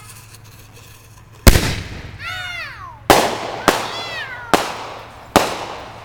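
Fireworks going off: five sharp, loud bangs over about four seconds, each one dying away quickly.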